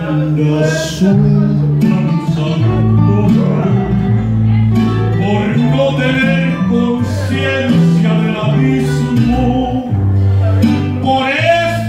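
Amplified live music: a man singing into a handheld microphone over backing music with a moving bass line.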